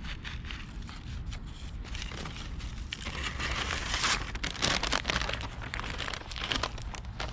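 Plastic bag crinkling and rustling in quick bursts while dog poop is scooped up, busiest about three to five seconds in.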